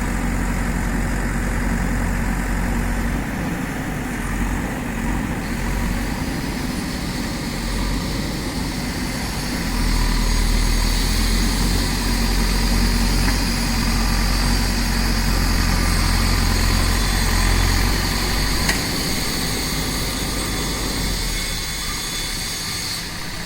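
Backhoe loader's diesel engine running steadily, its low rumble swelling and easing, with a thin high whine joining about six seconds in and fading near the end.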